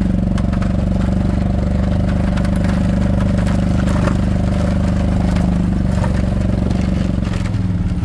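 Small utility vehicle's engine running steadily as it drives, heard from inside its cab, with light scattered rattling from the roof that the driver guesses is ice. Near the end the engine note changes and settles as the vehicle slows to a stop.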